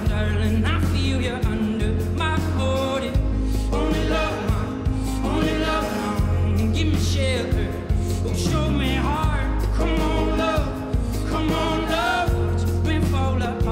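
Live band music: a male voice singing a wavering melody over acoustic guitar and drums, with a deep bass line shifting every second or two.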